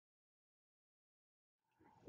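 Near silence: the sound track is muted, with only a very faint hiss coming in near the end.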